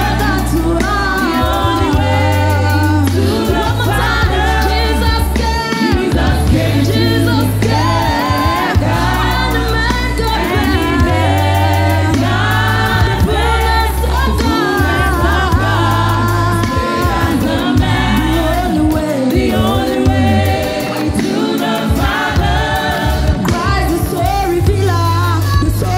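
Gospel worship song sung by a group of women into microphones, with the voices in close harmony over a deep bass accompaniment that changes note every couple of seconds.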